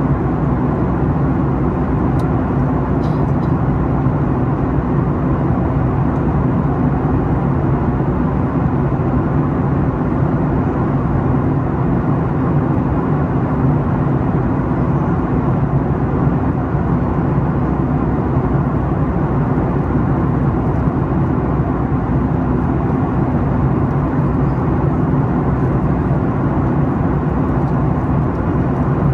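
Steady cabin noise of a Boeing 737 MAX 8 in flight, heard from a window seat beside the engine. The CFM LEAP-1B engine drones with a low hum, under an even rush of airflow.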